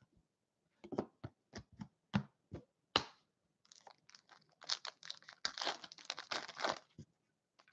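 About seven light taps over the first few seconds, then the foil wrapper of an Upper Deck Trilogy hockey card pack crinkling as it is torn open by hand.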